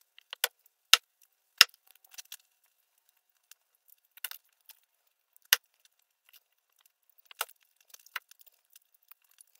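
Chef's knife and garlic cloves knocking sharply on a wooden cutting board, about half a dozen separate knocks with the loudest in the first two seconds, and faint crackling as papery garlic skin is peeled off between them.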